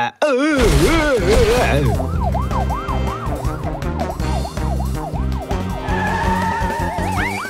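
Cartoon police car siren sounding, its pitch rising and falling quickly about twice a second, over background music.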